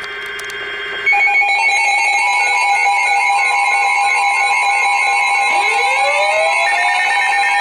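Emergency Alert System attention signal: a loud, steady alarm tone that starts about a second in. More tones join it, and a rising sweep comes in past the middle. It marks the start of a new weather alert broadcast.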